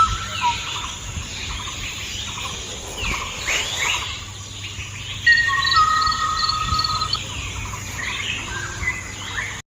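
Several birds chirping and whistling, their calls overlapping, with a few long steady whistled notes past the middle. The sound cuts off abruptly just before the end.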